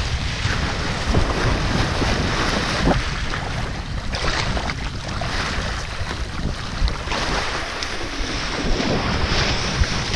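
Wind rumbling and buffeting on the microphone as a kiteboard rides across choppy water, with the rush and hiss of water under the board swelling a few times.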